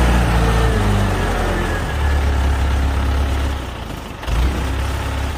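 Mobile crane's engine running under load while hoisting a heavy load. Its low note shifts a few times, with a brief dip and then a short surge about four seconds in.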